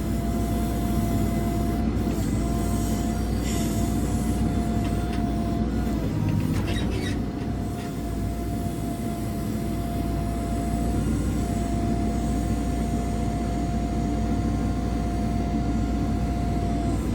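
JCB 3CX backhoe loader working under load while digging: a diesel rumble runs throughout, with a steady high whine over it that breaks off briefly a few times. A few sharp clanks come about six to seven seconds in.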